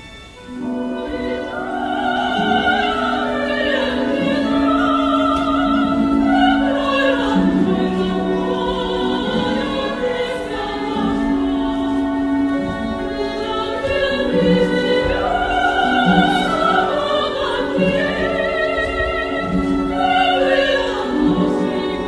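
Classical-style music with an operatic voice singing with vibrato over an orchestra, swelling up from a quiet start about half a second in.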